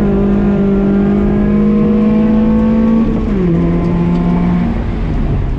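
Toyota MR2 Spyder's mid-mounted four-cylinder engine heard from inside the cabin, pulling hard with the revs climbing steadily. About three seconds in the pitch steps down in an upshift, then the revs drop again near the end.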